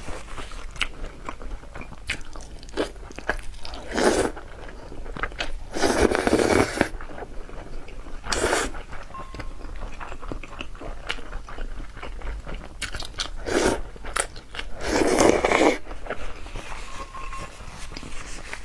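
Close-miked eating sounds: biting and chewing with wet clicks and crunches, and a few louder drawn-out noisy sounds of about a second, the loudest around a third of the way in and again near the end.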